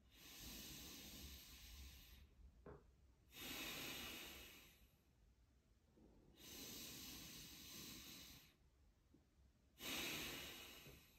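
A man's deep, controlled chi gung breathing, airy and hissing: four breaths that alternate a long, even one with a shorter, louder one, twice over.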